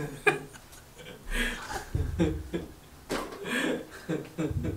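A woman chuckling and giggling in short bursts, with breathy laughs between them.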